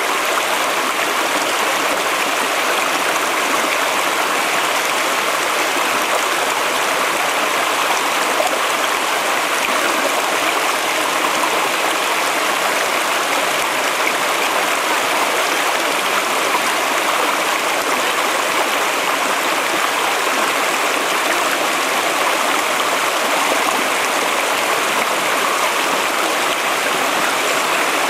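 A mountain stream rushing over rocks at a steady level.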